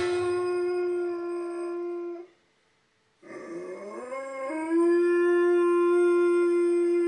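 Chocolate Labrador retriever howling: one long steady howl that breaks off about two seconds in, then after a short pause a second howl that starts low, slides up in pitch and is held steady.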